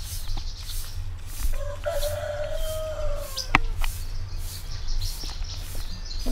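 A bundled-twig hand broom sweeping sandy ground in regular swishes, two or three a second. A rooster crows once, about one and a half seconds in, and small birds chirp. There is one sharp tap a little past halfway, and a steady low rumble underneath throughout.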